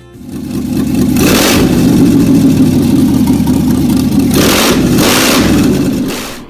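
A motor vehicle's engine running loudly, with two surges of rushing noise, one about a second in and a longer one about four and a half seconds in.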